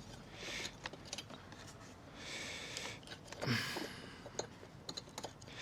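Quiet hand-work on a motorcycle battery terminal: soft rustling and scraping, then a few light clicks in the last second or so, with a brief low murmur about three and a half seconds in.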